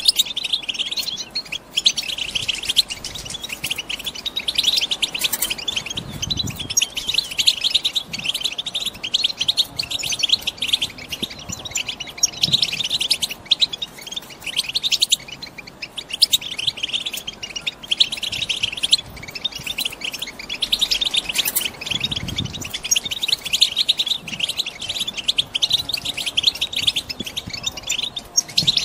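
Female European goldfinches twittering: a steady stream of rapid, chattering calls, the twitter used to stir a caged male goldfinch into song. Two soft low thuds break in, about a quarter and three quarters of the way through.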